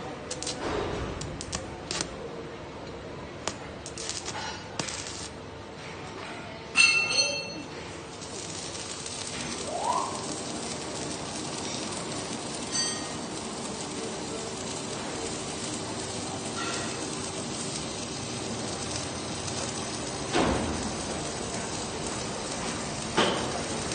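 Metal clinking in a welding shop: scattered light knocks, one loud ringing clink about seven seconds in, and two duller thumps near the end, over a steady hum and hiss.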